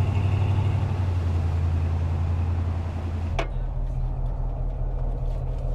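Lifted mega truck's engine running as it drives through floodwater, with water splashing around its big tyres. About three and a half seconds in, this gives way to a steadier, duller engine and road drone heard from inside the truck's cab.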